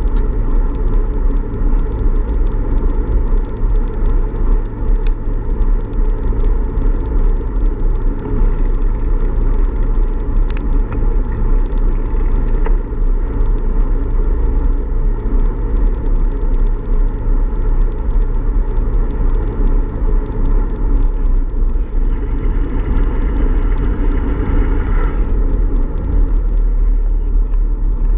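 Steady low rumble of wind buffeting and road noise on a bike-mounted camera's microphone while riding along a paved road. A brief higher whine comes in about 22 seconds in and stops about three seconds later.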